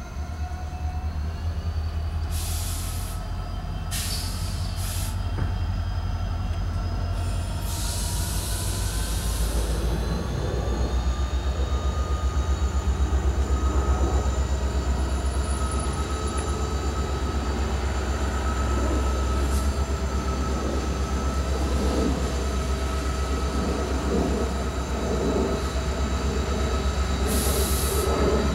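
CSX six-axle diesel locomotive moving slowly at the head of a high-and-wide load train: a steady low engine rumble under thin, high wheel squeals, some of which rise in pitch over the first several seconds. A few short hissing bursts come through, the last near the end.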